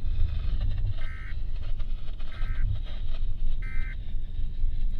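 NOAA Weather Radio EAS end-of-message data bursts: three short, identical warbling digital chirps about a second and a quarter apart, marking the close of a flash flood warning broadcast. They play over a steady low rumble.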